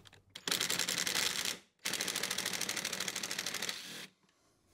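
Cordless impact driver hammering a T25 Torx screw out of a metal battery-pack side rail cover, in two runs: a short burst about half a second in, then a longer one of about two seconds that stops near the end. It gives a rapid, even clatter of impacts.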